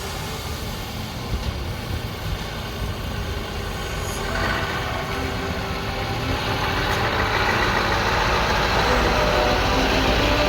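Heavy truck engine running, growing steadily louder over the second half.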